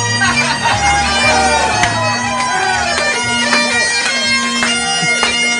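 Bagpipes playing a tune: the chanter carries a melody with quick grace notes over the steady hum of the drones.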